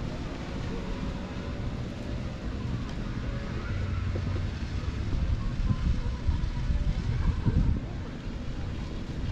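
Wind buffeting the action camera's microphone: a low, uneven rumble that swells into stronger gusts in the second half.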